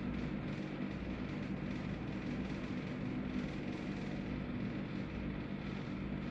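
Steady low hum of an air conditioner running, with a few faint steady tones and no change throughout.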